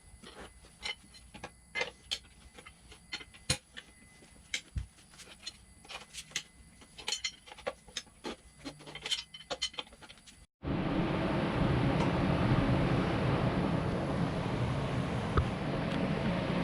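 Scattered light metallic clicks and taps from hand tools and a manual tire changer working a motorcycle tire. About ten seconds in, after an abrupt cut, a steady, louder hiss-like noise takes over.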